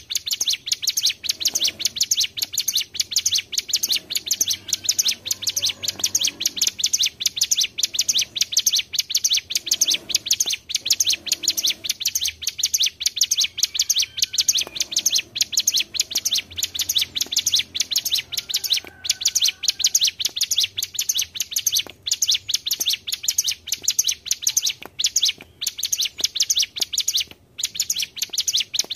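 Ciblek gunung (cigun) songbird in full song: a fast, continuous chattering trill of sharp high notes that runs almost without a break, pausing only briefly a few times in the second half.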